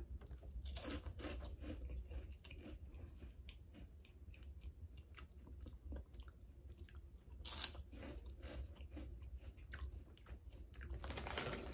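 A person biting and chewing crunchy snack sticks: quiet, irregular crunches, with louder bites about a second in and again about seven and a half seconds in.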